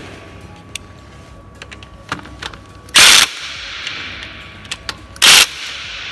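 Impact wrench fired in two short bursts, about three seconds in and again near the end, with small metallic clicks of hand tools between.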